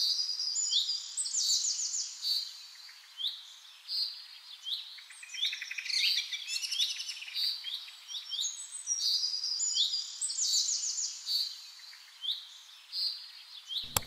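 Small songbirds chirping and twittering, with many short calls overlapping and quick runs of rapid chirps, from a stock birdsong recording.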